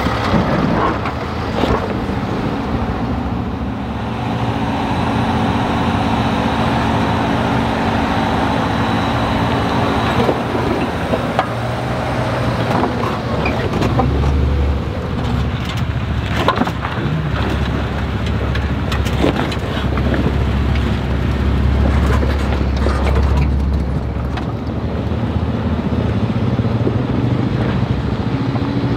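Four-wheel-drive vehicles crawling slowly over sandstone slickrock: engines running at low revs, with tyres crunching and popping on rock and grit. A deeper engine rumble swells about halfway through as a Jeep rolls close past, and again for several seconds later on.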